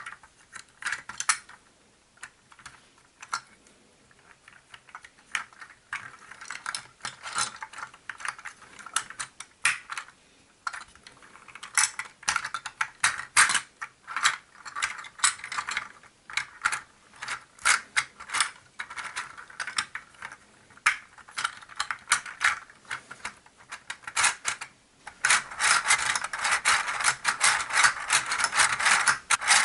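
Hard plastic parts of a model engine kit clicking and rattling as pistons and connecting rods are snapped onto the plastic crankshaft in its clear block. Near the end the clicks come thick and fast, a ratcheting run as the assembled crankshaft is handled.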